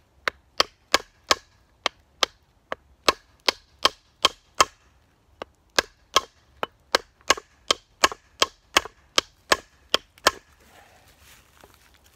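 A wooden baton striking a hatchet's freshly carved green-wood handle to seat the Bulgarian hatchet head: about two dozen sharp wooden knocks, two to three a second, with a brief pause about halfway, stopping a couple of seconds before the end.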